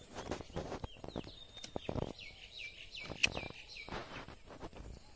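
Bare feet squelching and rustling through mud and water hyacinth in shallow water. In the middle, a bird calls a quick run of short, falling whistled notes.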